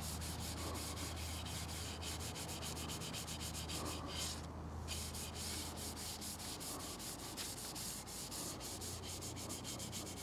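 Cloth rag rubbing walnut stain into a wooden rifle forend in quick back-and-forth strokes, a few wipes a second, over a low steady hum.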